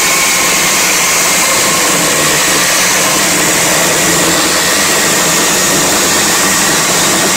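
HYCHIKA 8-inch brushless battery chainsaw cutting through a log: the chain and motor run steadily, with a high whine that drops slightly in pitch as the saw works through the wood.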